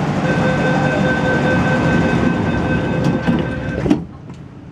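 MTR C-Train door-closing warning: a steady electronic tone for about three and a half seconds. Near the end the train doors and platform screen doors slide shut with a few clicks and a thud, and the platform noise drops away.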